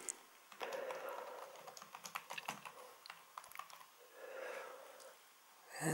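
Typing on a computer keyboard: a quick run of key clicks over the first three seconds or so.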